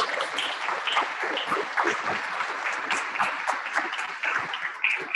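Audience applauding: many hands clapping.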